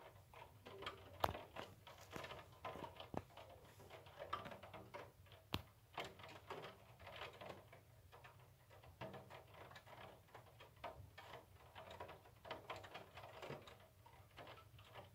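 Faint, irregular patter of raindrops striking a window pane, with two sharper ticks, one about a second in and one about five and a half seconds in.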